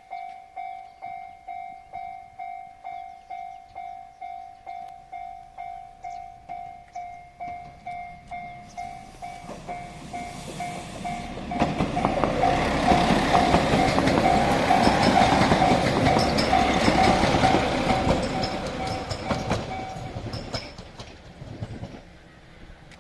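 Level crossing warning bell dinging steadily, about one and a half strokes a second, as a JR Shikoku 2000 series diesel tilting express approaches. About twelve seconds in, the train passes at speed, a loud rush of engines and wheels with rapid clicking, for about eight seconds. The bell stops near the end as the train noise fades.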